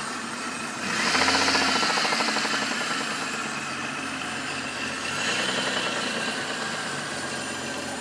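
Mitsubishi 6G73 V6 engine idling with a fast rhythmic knock, revved briefly about a second in and again around five seconds. The uploader puts the knock down to a worn crankshaft bearing shell, while the mechanics take it for a valve.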